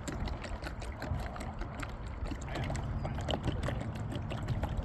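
Wind rumbling on the microphone on a small boat in gusty weather, with water slapping and small knocks scattered throughout.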